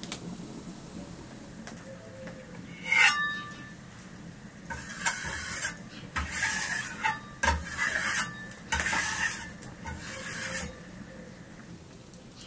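A sharp metal clink with a brief ring about three seconds in, then about five rasping strokes of metal scraping on metal, each under a second.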